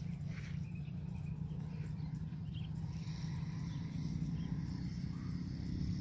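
Outdoor ambience of insects chirring steadily, a thin high sound that grows a little stronger about halfway through, over a steady low rumble.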